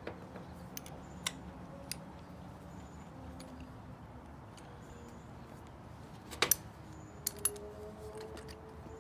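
Small steel open-end wrench clicking and clinking against the brass fittings of a propane burner hose as the nuts are snugged down: a few light clicks in the first two seconds, a louder double clink about six and a half seconds in, then two more light ones.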